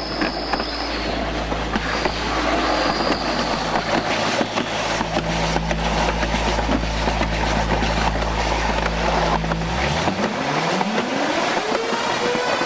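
Alpine slide sled running down its trough: a steady rushing, rumbling noise with many small knocks as it rides over the track. About ten seconds in, a rising whine sets in and then levels off.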